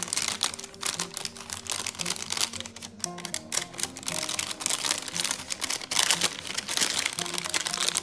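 Thin plastic wrapping crinkling and rustling in irregular crackles as a phone case is pulled out of it, over steady background music.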